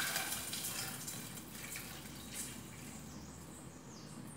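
Water pouring from a stainless steel kettle into a small pot on the stove, the sound of the stream growing gradually quieter.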